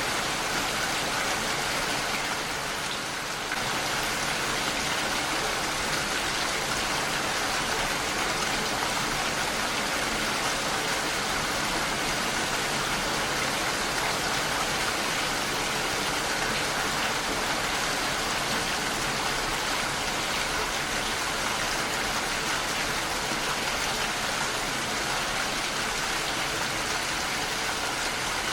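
Heavy rain falling steadily against a window pane, a dense, even hiss of drops. The level dips briefly about three seconds in.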